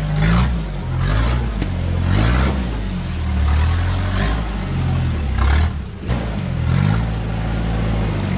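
Modified Toyota Hilux rock crawler's engine working at low revs, the revs rising and falling repeatedly as the truck is walked over rocks.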